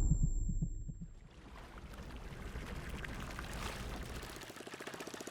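Low throbbing fading out over the first second, then faint river water and, about four and a half seconds in, a small boat engine starting to chug with a fast, even beat.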